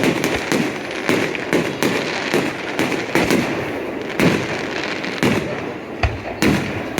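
Fireworks display: a dense barrage of bangs in quick succession, several each second, with the loudest bang about four seconds in.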